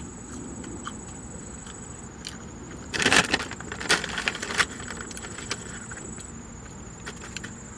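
Eating and handling noises as a French fry is eaten: a short burst of crackling about three seconds in, then a few light clicks, over a faint steady high-pitched whine.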